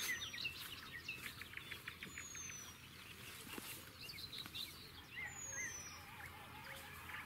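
Birds singing in a spring dawn chorus: many small birds chirping, with a thin high whistle falling in pitch repeated about every two and a half seconds.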